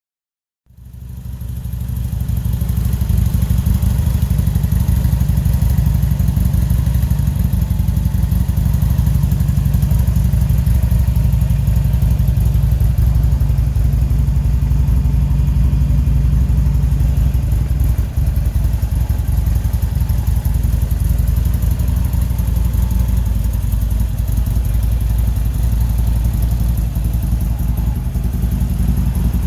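2008 Buell XB12S Lightning's Thunderstorm 1203 cc air-cooled V-twin running steadily through a Sebring exhaust. Its pulsing exhaust note fades in just after the start and then holds an even speed.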